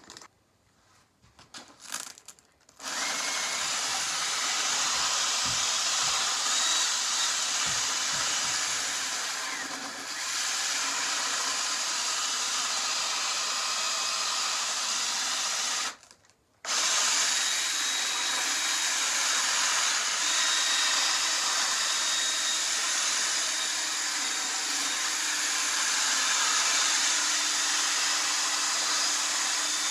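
Makita cordless drill spinning a wooden dowel ramrod while coarse-grit sandpaper is pressed against it: a steady whir with a faint motor whine. It starts about three seconds in, stops for about half a second around the middle, then runs on.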